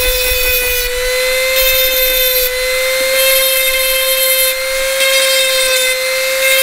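Handheld rotary tool with a grinding stone bit running at a steady high whine, its stone grinding against the shiny tops of 18650 lithium-ion cells in several short passes, with a hiss each time it touches. The cell tops are being roughened so that solder will stick to them.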